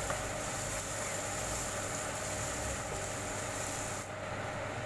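Minced garlic sizzling in a little oil in a wok as it fries toward golden brown: a steady hiss, whose higher part thins out about four seconds in.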